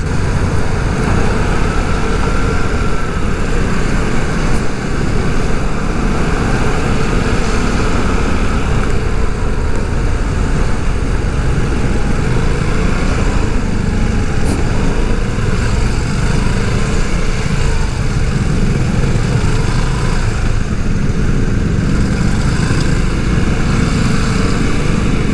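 Riding sound from a helmet- or bike-mounted action camera on a moving Vespa scooter: steady wind rumble on the microphone with the scooter's engine underneath, its faint whine rising and falling as the rider eases through slow traffic.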